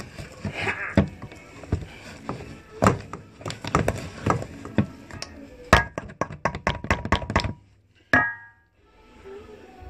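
Stainless steel mixing bowl knocked and handled while rock-bun dough is mixed in it: a run of quick knocks, thickest in the middle, then a short ringing clink about eight seconds in.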